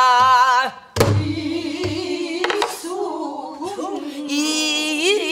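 A woman singing a Korean folk song in a strong, wavering Namdo-style voice, its held notes shaken with wide vibrato. A buk barrel drum is struck with a stick, a sharp knock with a low thud about a second in and another knock midway.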